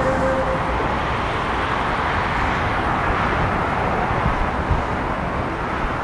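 Steady road traffic noise from an expressway and the road beneath it, an even rushing hiss. The last held tones of a municipal PA chime played through horn loudspeakers die away in the first half second.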